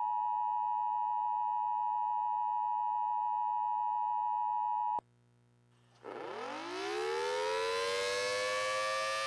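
A steady high tone that cuts off abruptly about five seconds in, then after a second of silence an outdoor warning siren winds up, rising in pitch and levelling off into a steady wail near the end.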